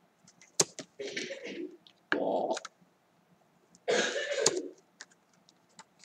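Stiff paper flash cards being slid and swapped by hand: three short rustling scrapes, about one, two and four seconds in, with a few sharp paper clicks and taps around them.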